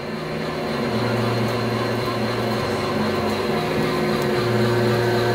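Large TM-26120G centre lathe running as a tool turns down the outside of a long steel hollow bar: a steady machine hum that builds over the first second and then holds even.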